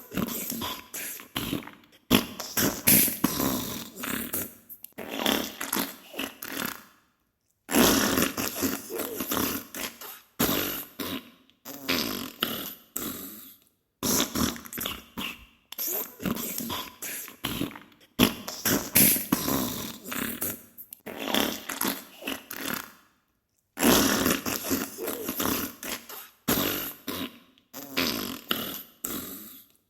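Diarrhea sound effect: sputtering fart sounds in bursts a few seconds long, separated by brief pauses.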